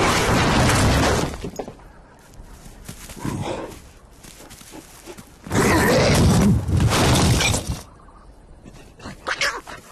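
Cartoon sound effects of boulders crashing down, with a loud crash in the first second. A second loud stretch of noise comes just past halfway, and scattered clicks follow near the end.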